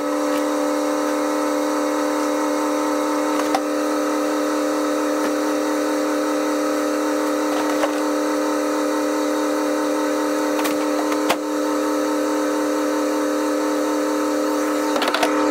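Steady machine hum with a constant pitch, unchanging throughout. A few faint knocks and rustles from goose decoys and decoy bags being loaded into a truck bed.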